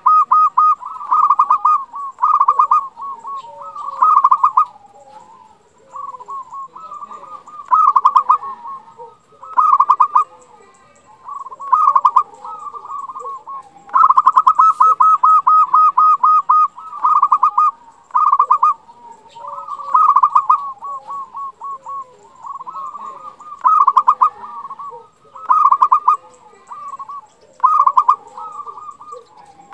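Zebra dove (perkutut) cooing: short, rapidly pulsed trilled coos repeated every one to two seconds, with softer lower notes between them. Longer rolling trills come at the start and about halfway through.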